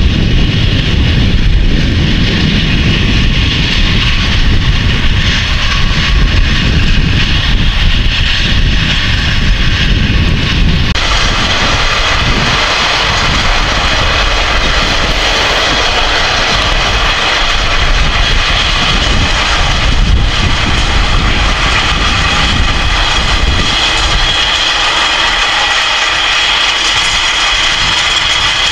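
Case Quadtrac 620 tracked tractor running under load while it pulls a cultivator and roller: a steady diesel engine note with a high whine. About a third of the way in, the deep rumble abruptly drops away and the higher whine comes to the fore.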